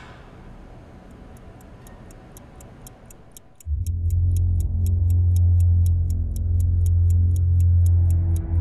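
Clock ticking fast and evenly, about four ticks a second. A little under four seconds in, a loud, low bass drone of music swells in beneath it.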